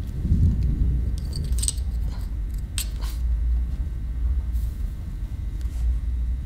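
Low, steady rumbling drone of horror-film sound design. Over it come a few light clicks and scrapes between about one and a half and three seconds in, as a pencil is picked up off a wooden desk.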